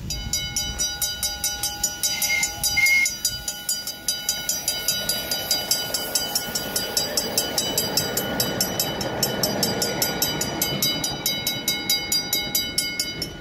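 A rail vehicle running with a fast, even clicking beat over a steady high tone, with two short high notes about two seconds in.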